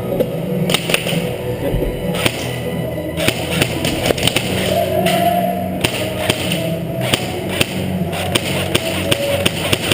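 Rock-style music playing, with many sharp clicks and snaps over it that come faster near the end.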